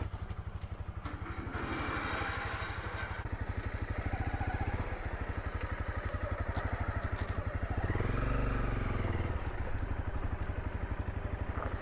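Honda CRF250L's single-cylinder engine running at low speed with even, low firing pulses, as the bike rolls slowly along. It swells briefly louder about eight seconds in.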